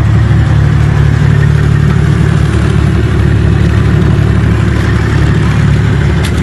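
Diesel engine of a tracked BMP-type infantry fighting vehicle running steadily as it moves slowly, a loud deep drone with an even rhythmic flutter.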